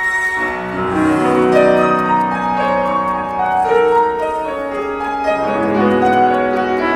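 Instrumental classical-style music: a slow rhapsody on piano or keyboard with held chords and a melody, a low bass part coming in about half a second in.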